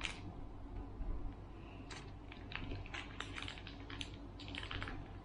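Irregular light clicks and scrapes of cutlery against takeaway food containers during a meal.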